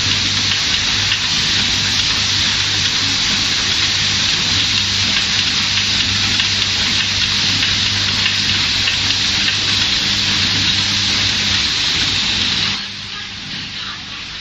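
Fiber laser welding machine running: a steady loud hiss over a low hum, which drops off sharply about 13 seconds in.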